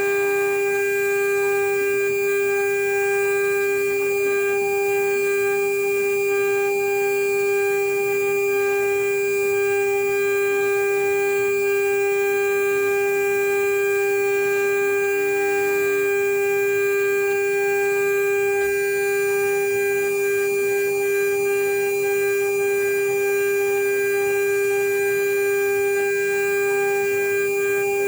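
CNC router spindle running with a steady high whine, milling a marine aluminium seal plate.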